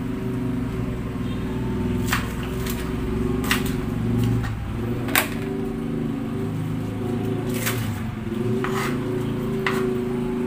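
Knife slicing spring onion on a plastic cutting board: about seven sharp, irregular taps of the blade on the board, over a steady low electrical appliance hum.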